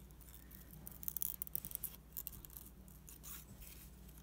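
Small craft scissors snipping thin paper in a run of short, faint cuts, busiest between about one and two seconds in.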